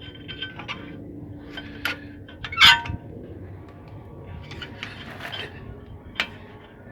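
Steel screwdriver clinking and scraping against the brake caliper and pads while levering the caliper piston back. There is a loud ringing metal clink about two and a half seconds in and a sharp tap near the end, with lighter ticks between.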